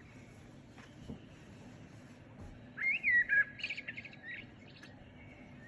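A songbird singing: a quick warbling phrase about three seconds in, with a few fainter chirps around it, over a faint steady hiss.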